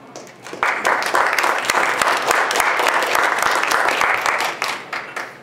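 Audience applauding: many hands clapping start about half a second in, hold steady for about four seconds, then die away near the end.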